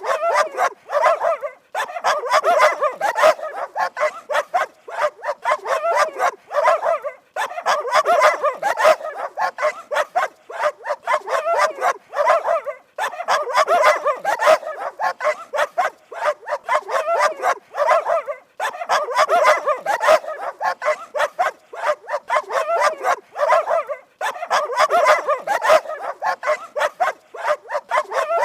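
Dog barking rapidly and continuously, in runs of about five seconds broken by short pauses.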